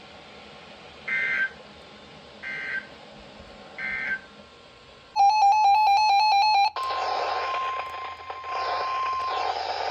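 Emergency Alert System end-of-message data bursts: three short, shrill electronic squawks about a second and a half apart. They are followed by a loud, rapidly pulsing buzz tone for about a second and a half. Then a steady weather-radio alert tone sounds over static for nearly three seconds, opening the next warning.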